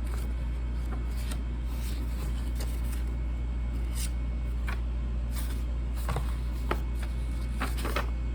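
Steady low hum with scattered light clicks and rustles, the clicks busiest near the end.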